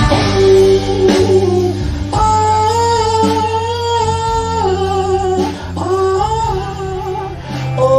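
Live band music: electric guitar and drums under a slow melody of long held notes that slide from one pitch to the next every second or two.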